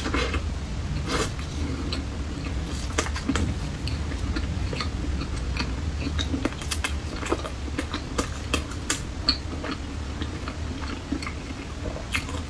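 A person biting into and chewing a mouthful of soft thick-cut toast spread with green chili sauce, heard close up as scattered wet mouth clicks over a steady low hum.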